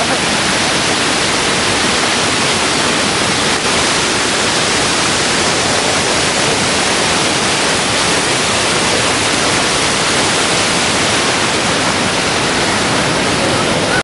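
Manavgat Waterfall: a loud, steady rush of white water pouring over the falls, an unbroken even noise.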